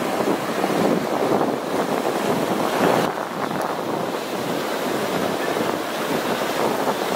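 Surf breaking and washing up a sandy beach, with wind buffeting the microphone.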